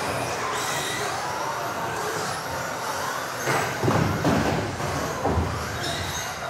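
Several electric RC off-road buggies racing at once, their motors whining up and down in pitch as they accelerate and brake, over a steady hiss of tyres and drivetrains. A louder, lower burst comes a little past halfway.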